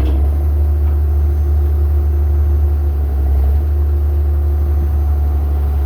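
A heavy engine running steadily, a deep low rumble with a faint steady hum above it.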